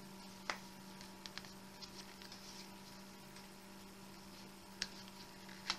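Steady low mains hum, with a few faint scattered clicks and rustles of a wallet being handled.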